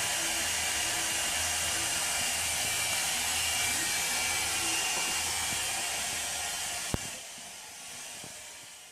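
Hot-air styling brush blowing steadily, a hair-dryer hiss over a low motor hum. A single sharp click comes about seven seconds in, after which the sound drops and fades away.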